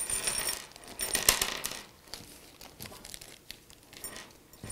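Small metal mounting hardware (screws and P-clips) clinking onto a tabletop as it is tipped out of a plastic bag, with the bag crinkling. The loudest clatter comes a little over a second in, followed by lighter clicks as the parts are moved about.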